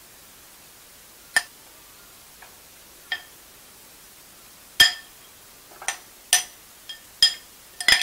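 A metal spoon clinking against a wire grill rack while spreading vegetable topping on bread: about eight sharp, ringing clinks at irregular intervals, the loudest about five seconds in.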